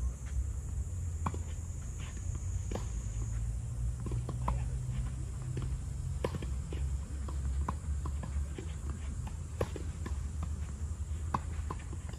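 Footsteps on a walking path: irregular light taps, about one a second, over a steady low rumble.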